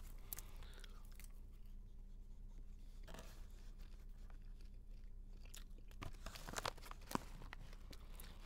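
Faint crunching of popcorn being eaten, with a few short sharp clicks in the second half over a steady low hum.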